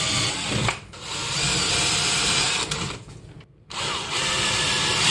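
Cordless DeWalt drill with a half-inch masonry bit boring holes through drywall, running at speed in three bursts with brief stops just before a second in and again around three seconds in.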